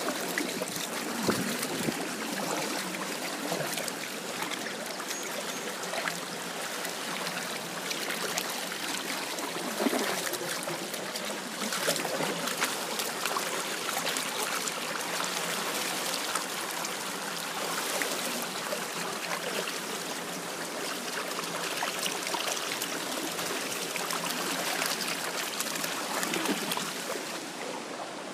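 Snowmelt floodwater flowing steadily, a continuous rush flecked with small gurgles and splashes, easing off a little near the end.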